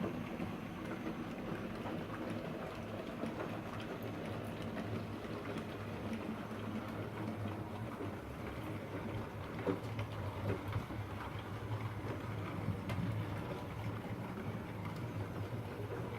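OO-scale model train running on the layout's track: a steady low motor hum that grows stronger about halfway through, over a crackly rolling noise with scattered clicks from the wheels on the rails.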